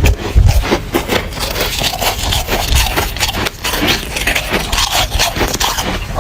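Close-miked crunching of soft, powdery freezer frost as it is bitten and chewed, a rapid, irregular run of crisp crunches with a few deeper thuds about half a second in.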